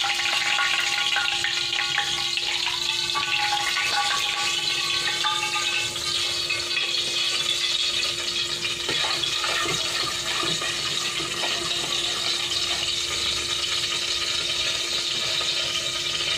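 Hot cooking oil sizzling in an aluminium pot on an electric coil burner: a steady hiss, with a steady hum underneath and a few light knocks about midway.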